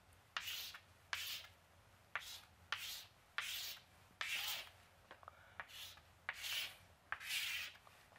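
Chalk on a chalkboard: a quick run of straight strokes, each starting with a sharp tap of the stick and followed by a short scratchy rasp, about one to two strokes a second.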